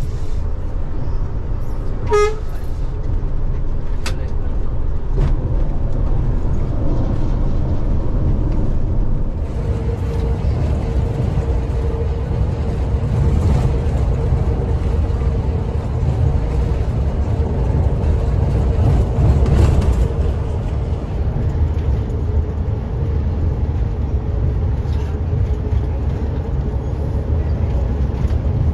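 Scania K410 bus diesel engine and road noise heard from inside the cabin while cruising, a steady low rumble with a droning tone for several seconds in the middle. A horn gives a short toot about two seconds in.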